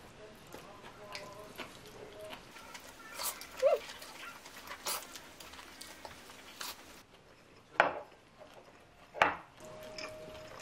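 Close-up eating sounds: spicy cold noodles slurped and chewed, with wooden chopsticks clicking against the plate and bowl now and then. The sharpest clicks come near the middle and twice near the end.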